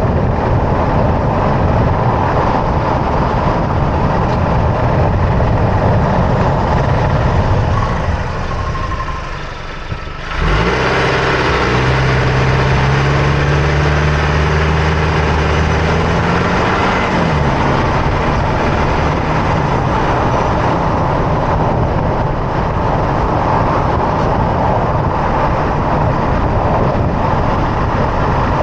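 A racket of road, tyre and chassis noise heard from under the front end of a 2024 Toyota Tacoma while driving, with its 2.4-litre turbocharged four-cylinder running beneath it. About ten seconds in the noise dips briefly, then returns suddenly and the engine note climbs steadily for about six seconds as the truck accelerates, before settling back into road noise.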